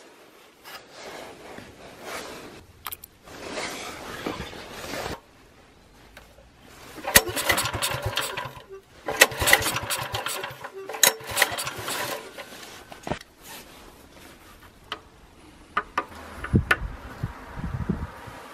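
Small generator engine being pull-started with its recoil rope: repeated pulls, each a burst of cranking noise a second or two long. It is hard-starting because an ignition coil from a different engine has been fitted.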